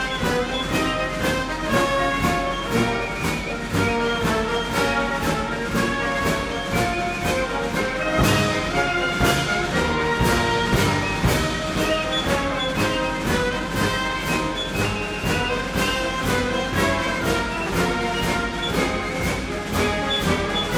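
Orchestral music with brass, over a steady beat.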